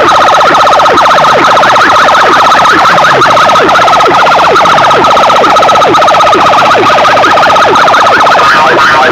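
Siren-like electronic effect played at full volume through banks of horn loudspeakers on a DJ sound system: a steady shrill tone with a fast pulse, cut by quick falling swoops about twice a second. The pattern changes shortly before the end.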